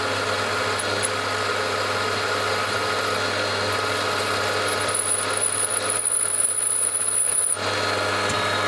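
Milling machine spindle running with a spot drill cutting into an aluminium block. The cut grows louder and rougher, with a thin high whine, from about five to seven and a half seconds in, then the spindle runs on steadily.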